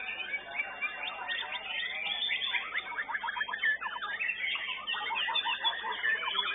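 Caged white-rumped shamas (murai batu) singing together: a dense overlapping mix of rapid chirps and whistled phrases, busiest from about the middle on.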